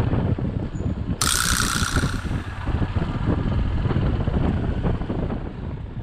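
Low rumble of a motorcycle on the move with heavy wind buffeting the microphone, and a sharp hiss lasting about a second, starting about a second in.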